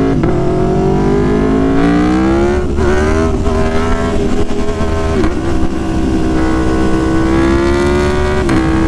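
Aprilia Tuono Factory motorcycle running through an aftermarket SC Project S1 exhaust under acceleration: the engine note climbs in pitch in several pulls with brief dips at the gear changes, then holds fairly steady before dropping near the end. The sound is very loud.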